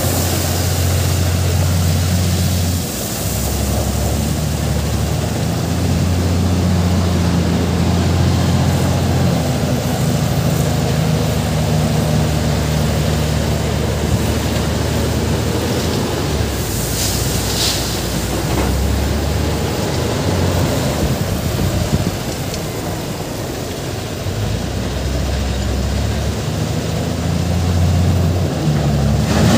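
JCB wheel loader's diesel engine working under load, its pitch stepping up and down every few seconds as it digs, lifts and tips crushed stone. A brief hiss comes about seventeen seconds in.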